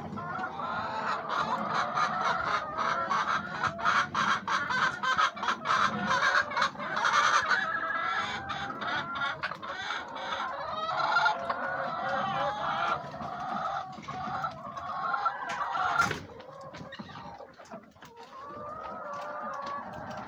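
A flock of white laying hens clucking and calling over one another, with many sharp clicks among the calls. A single loud knock comes near the end, and the flock is quieter after it.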